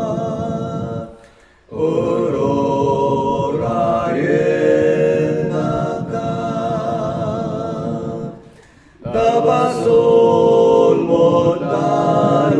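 A man singing a religious song in Ilocano without accompaniment, his own voice layered in several parts like a small choir. The held notes break twice for a breath between phrases, about a second in and about eight and a half seconds in.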